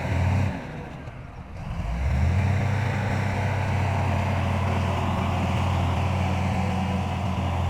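Heavy diesel engine of construction machinery running steadily with a low hum. The sound drops away about half a second in and comes back about two seconds in.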